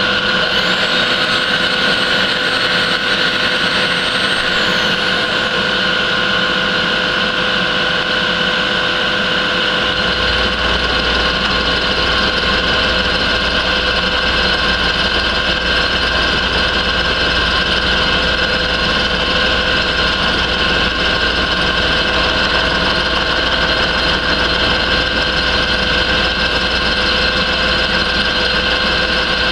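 Vertical milling machine running, its end mill cutting a metal block held in the vise with a steady whine. A deeper low hum joins about ten seconds in.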